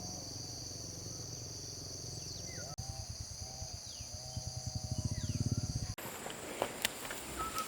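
Insects trilling steadily in a high, continuous chorus, with a few short falling bird whistles and a low, rapid pulsing that swells before cutting off abruptly about six seconds in. After the cut come scattered clicks and taps.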